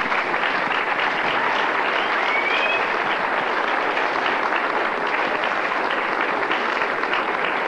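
Audience applauding steadily, with a short rising whistle from the crowd about two seconds in.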